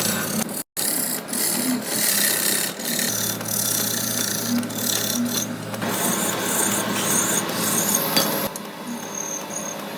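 Rasping of a tool working cast brass during bell finishing, with a low steady machine hum underneath. The sound drops out for an instant near the start and changes abruptly a few times, as shots cut from one to the next.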